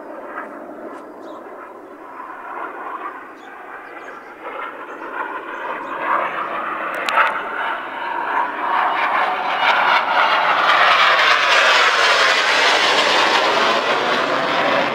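A Red Arrows BAE Hawk T1 jet, powered by an Adour turbofan, flying past low with its jet noise building steadily as it approaches and at its loudest near the end.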